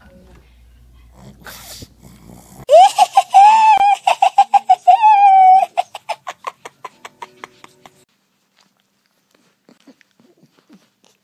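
A person's high-pitched laugh: one long held peal, then a quick run of short bursts that fades away.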